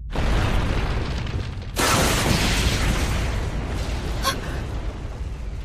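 Anime blast sound effect: a rushing noise, then a louder booming blast about two seconds in that rumbles on.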